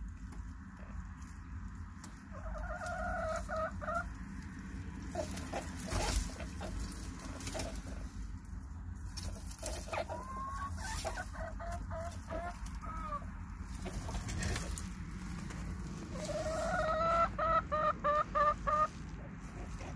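Chickens calling: a drawn-out call, then rising calls and short notes, and near the end a rising call that breaks into a quick run of six or seven clucks. A couple of short knocks come in between.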